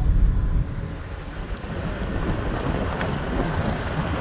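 Wind buffeting the microphone: a heavy rumble that eases about half a second in, then a steady rushing noise.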